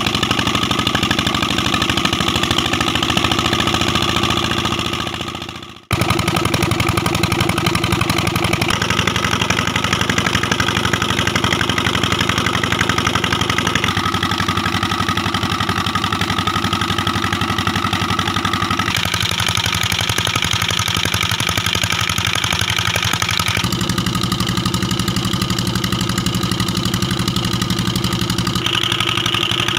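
Old Petter diesel engine running steadily, driving a belt-driven irrigation water pump. The sound fades and drops out briefly about six seconds in, then comes straight back.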